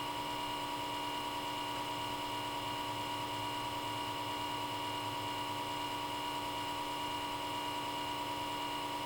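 Small cooling fan in a Comcast Xfinity X1 DVR cable box running at high speed, a steady hum made of several even tones, humming loudly.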